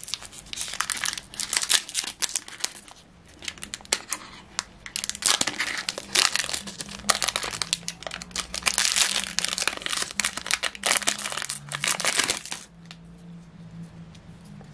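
Foil wrapper of a Pokémon Trading Card Game booster pack crinkling and tearing as it is opened by hand, with many quick crackles. The crackling dies down about twelve and a half seconds in, as the cards come out of the pack.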